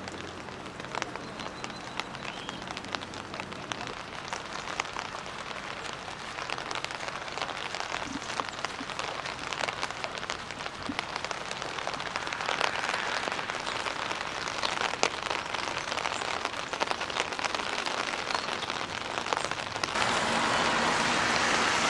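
Steady rain falling on wet pavement and standing floodwater, a dense patter of small drop ticks. About twenty seconds in it cuts to a louder, steadier rush of rain.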